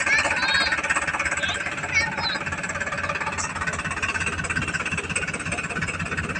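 Tractor diesel engine running steadily at idle, with an even pulsing clatter.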